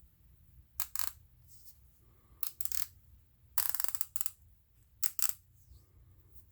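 HAZET 8816HP 3/8-inch 90-tooth ratchet being handled and worked: a series of short metallic clicks and clinks, with a longer run of rapid fine clicking about three and a half seconds in.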